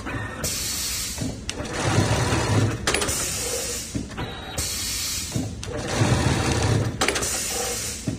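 Zoyer ZY-HY4030BG-54A automatic programmable pillow sewing machine running its stitching program, in louder runs that repeat about every four seconds, with sharp clicks between the runs.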